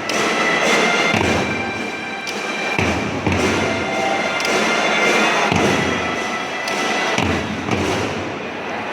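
School drum band playing: deep bass drum strokes every second or two under a dense wash of snare drums and cymbals, with steady held melodic tones above.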